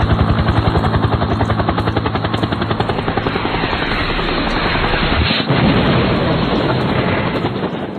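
Siomai frying in hot oil: continuous sizzling with rapid, dense crackling.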